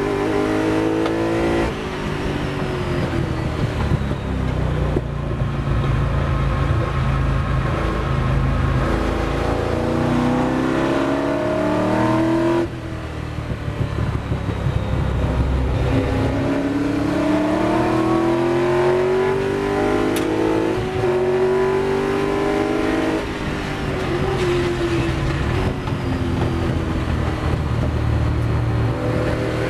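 Ford GT40's V8 engine heard from the cockpit under racing load. Its revs climb for long stretches under acceleration and cut off sharply as the throttle is lifted about halfway through. They climb again, fall away about two-thirds through as the car slows for a corner, and rise once more near the end.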